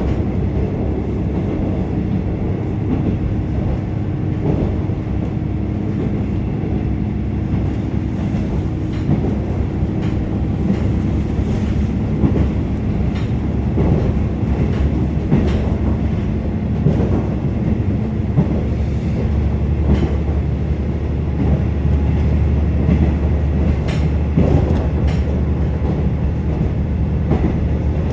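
KiHa 47 diesel railcar heard from inside the cabin while running: a steady diesel engine drone and low rumble, with the wheels clicking over rail joints. The low drone grows heavier about two-thirds of the way in.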